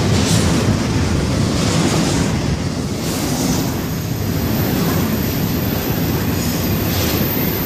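Double-stack intermodal container train rolling past below, a steady rumble of wheels on rail with faint brief hisses every second or so.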